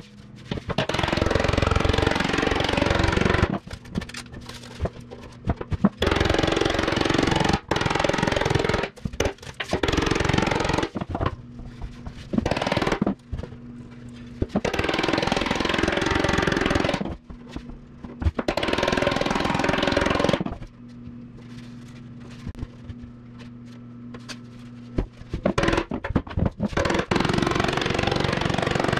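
A power tool working the sheet steel of a motorcycle fuel tank in repeated loud bursts of one to three seconds, with a steady low hum in the pauses between.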